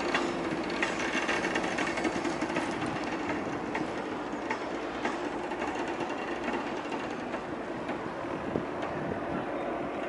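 BNSF diesel freight train running across a steel railway bridge: a steady engine hum with scattered light clicks and rattles from the wheels and cars.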